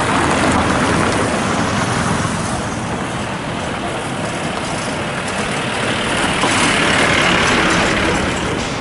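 Heavy road traffic, such as trucks or buses, passing close by on a rough gravel road as a loud, steady rumble. It swells twice: near the start and again about seven seconds in.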